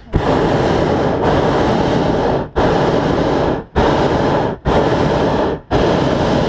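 Hot air balloon's propane burner firing in five loud, steady blasts, each one to two and a half seconds long, separated by short breaks; the last blast is still going at the end.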